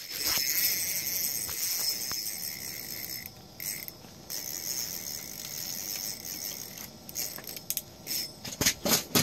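Fishing line running off an ice-fishing reel as the lure is let down to the bottom: a thin, high whir and hiss, strongest for the first three seconds and then weaker. A run of quick clicks and taps near the end.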